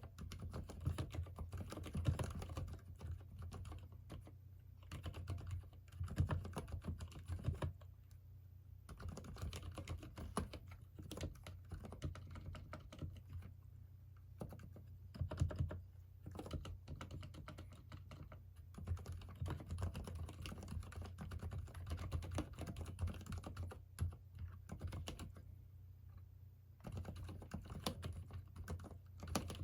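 Continuous typing on a mechanical keyboard with Cherry MX Silent Red linear switches, fast runs of soft keystrokes broken by short pauses.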